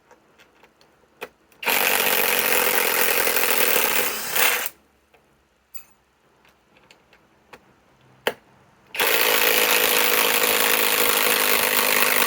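Cordless Kobalt 3/8-inch right-angle impact wrench hammering as it backs structural lag screws out of wood. It runs twice: once from about a second and a half in for over two seconds, with a short burst after, and again from about nine seconds in, still going at the end. Small clicks come between the runs.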